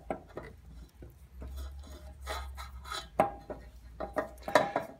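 A spatula scraping thick sourdough starter out of a metal bowl into a stand mixer's steel bowl, with irregular scrapes and clinks of the bowls and spatula knocking together, a few sharper knocks in the second half.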